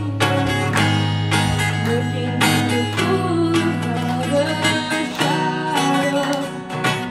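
Steel-string acoustic guitar strummed in a steady rhythm of chords, with a female voice singing a held melody over it.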